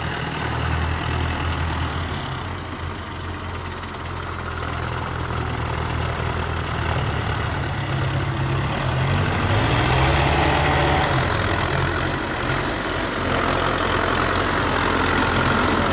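Belarus tractor's diesel engine running under load as its front blade pushes dirt up a slope; the engine note shifts a little midway and the sound grows louder in the second half.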